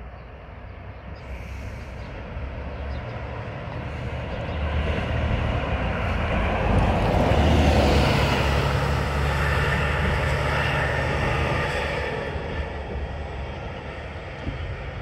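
Alexander Dennis Enviro 400 City double-decker bus driving past close by: its engine and tyres grow louder for several seconds, are loudest about halfway through as it passes, then fade as it pulls away up the road.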